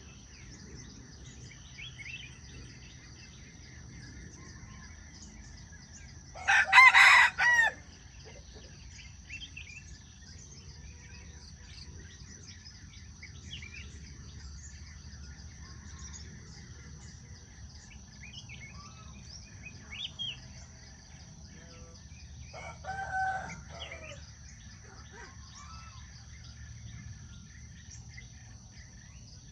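A rooster crows loudly once about six seconds in, and a second, fainter crow comes about twenty-three seconds in. Under them runs a steady high insect drone, with scattered small bird chirps.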